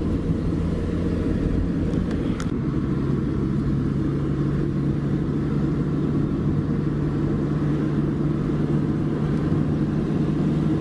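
Car engine and tyre noise heard from inside the cabin while driving: a steady low drone, with the engine note stepping lower about two seconds in. Two faint clicks come at about the same moment.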